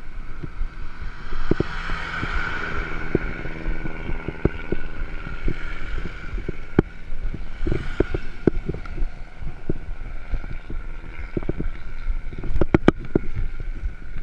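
Wind buffeting the microphone of a bicycle-mounted camera while riding over a concrete road, with frequent knocks and rattles from the bike and its mount on the road joints. A motorcycle engine drones as it comes up and overtakes close by around the middle.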